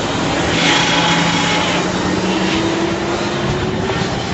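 A garbage truck running up close, its engine and hydraulics working the cart lifter. About half a second in, a whine begins and climbs slowly in pitch.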